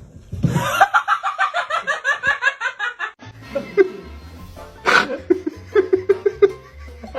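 A person laughing hard in a quick run of 'ha-ha' pulses for about three seconds. Background music with a steady bass takes over after that.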